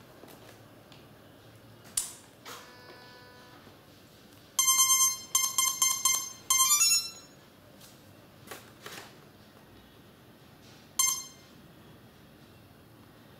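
Battery lead plugged into an electric RC plane's ESC with a sharp click. Then the ESC's start-up beeps sound through the brushless motor: a run of loud stepped beep tones, and a single beep a few seconds later.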